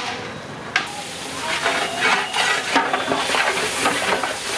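A long metal ladle stirring and scraping through frying biryani masala in a large aluminium cooking pot, the masala sizzling. The scraping strokes start about a second in and come thick and irregular after that.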